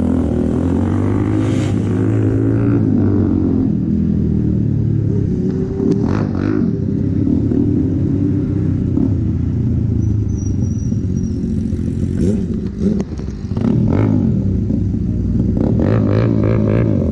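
Suzuki GSX-R 750's inline-four engine running at low speed in town traffic, its note drifting up and down with light throttle, with other motorcycles close by. The sound drops briefly about thirteen seconds in.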